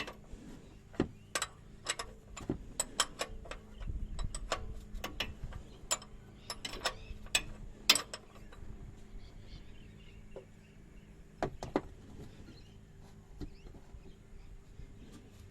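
Ratchet wrench clicking in quick, irregular runs with metallic clinks as a tight sump drain plug is backed out. The clicks thin out after about eight seconds.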